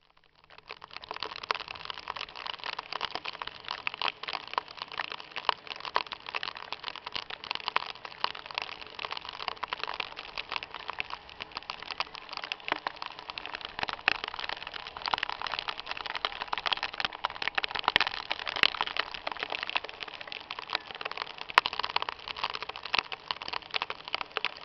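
Hail and heavy rain hitting in a dense, steady patter of countless small hits.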